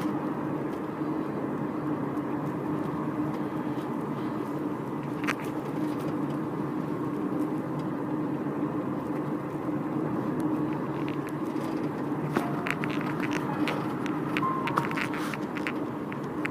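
Steady car road and engine noise heard from inside the moving car's cabin, with a steady low hum. Several light clicks come in the last few seconds.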